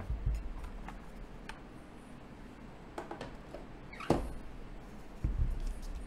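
One-piece aluminium keyboard case (Mekanisk Klippe T) handled on a desk mat: scattered soft knocks and taps, a sharper knock about four seconds in, and a couple of low thuds a little after five seconds as it is set down.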